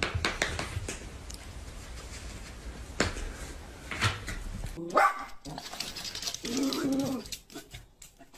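A dog barking, a few short sharp barks.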